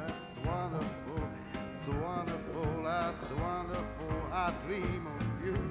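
Country-style background music with a gliding melody line.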